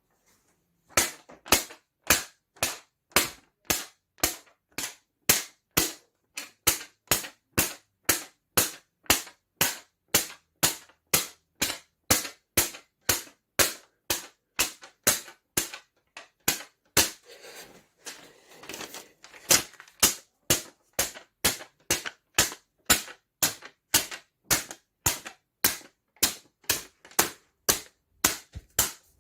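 Paper snapping with sharp cracks, about two a second, in a steady rhythm, with a stretch of rustling about two-thirds of the way through.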